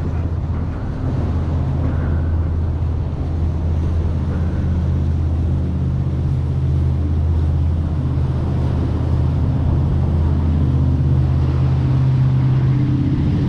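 An engine running steadily: a low drone with a constant pitch that grows slightly louder toward the end.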